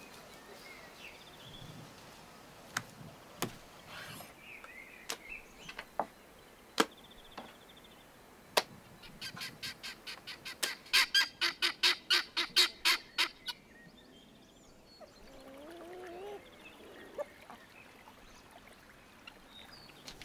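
Kitchen knife striking a wooden cutting board while cutting lamb: scattered single knocks, then a fast run of chopping, about six strokes a second for three to four seconds. Afterwards a farm bird gives a brief gliding call.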